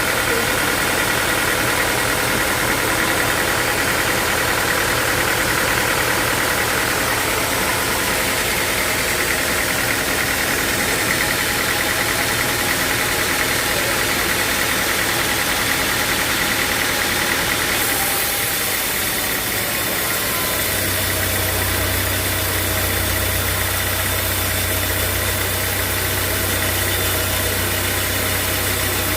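Sawmill machinery running steadily with an engine-like hum. About eighteen seconds in the sound changes: more hiss on top, then a deeper, stronger hum a couple of seconds later.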